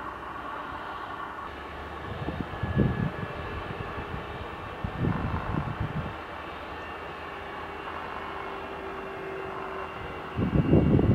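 Wizz Air Airbus A321 jet engines running at taxi power, a steady jet whine over a rumble. Three louder, irregular low rumbling swells come about two, five and ten seconds in.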